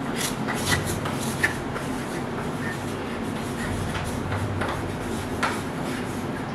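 Scratching and light tapping of writing on a school slate, with small rustles, over a steady background noise.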